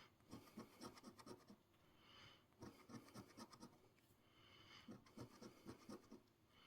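A coin scratching the coating off an instant lottery scratch ticket: faint, in three short runs of quick strokes.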